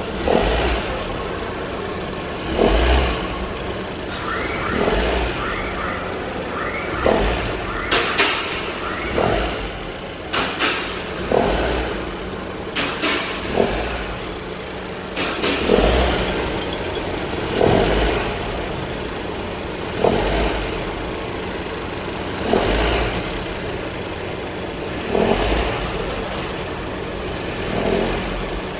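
Honda Civic RS Turbo's 1.5-litre turbo four-cylinder running with the AC on, with a grinding rattle from the serpentine-belt auto tensioner surging again and again, every couple of seconds, as load comes on. The mechanic takes it for a failing auto tensioner.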